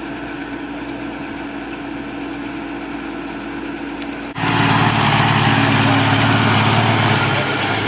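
Diesel engine of heavy earth-moving machinery running steadily; about four seconds in, the sound jumps suddenly to a much louder, harder-working engine.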